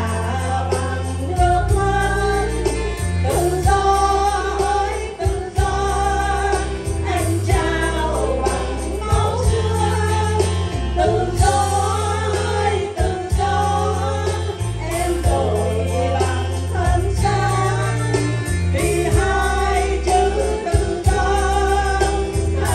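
Three women singing a Vietnamese song together into handheld microphones, amplified through a PA, over electronic keyboard accompaniment with a steady bass line.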